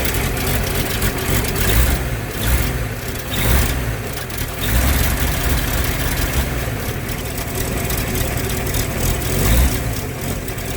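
Rebuilt inline-six engine of a 1951 Chevrolet Fleetline Deluxe idling unevenly as it warms up from a cold start after six months of sitting. It is running a little rough.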